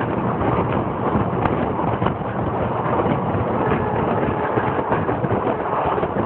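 Train running along the track: a steady rumble with a rapid, uneven clatter of wheels over the rails.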